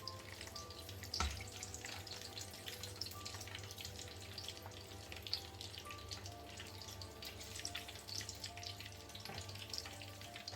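Dough pastries deep-frying in hot oil: a steady dense crackle and bubbling of the oil, with a single thump about a second in.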